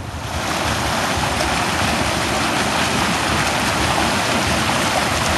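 Stream water rushing and splashing over rocks in a small rapid: a loud, steady rush that swells in within the first half second.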